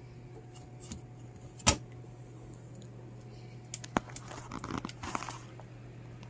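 Handling noises as a pet hamster is set back into her cage: a sharp knock about a second and a half in, another about four seconds in, then brief rustling, over a steady low hum.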